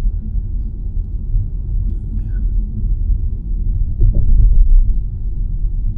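Low, steady rumble of a car driving, heard from inside the cabin, swelling a little about four seconds in.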